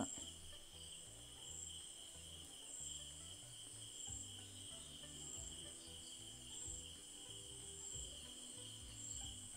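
Faint insects, likely crickets, trilling: a steady high note with a higher chirp repeating about once a second, over a faint low murmur.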